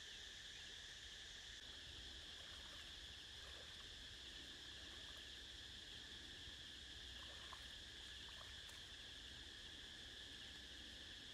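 Faint, steady insect chorus: a continuous high shrill drone with no let-up, with a few faint short ticks in the middle.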